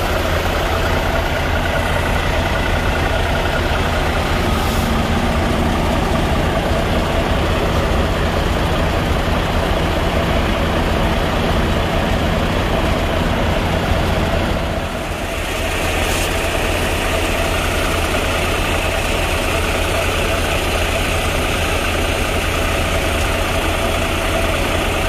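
Semi-truck's diesel engine idling steadily as a constant low hum, dipping briefly about fifteen seconds in.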